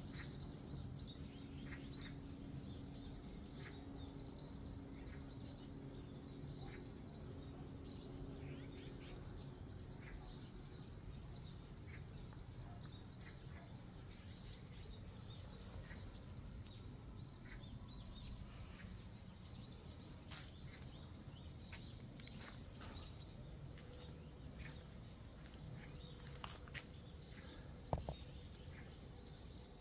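Faint chirping of small birds: many short, high calls scattered throughout, over a steady low background. A single brief knock comes near the end.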